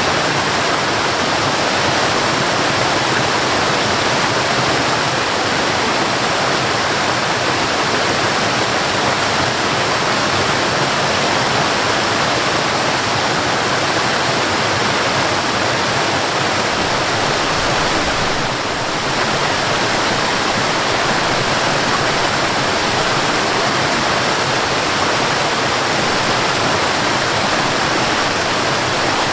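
Waterfall: water pouring and splashing in a steady, unbroken rush, with a slight brief dip in level about two-thirds of the way through.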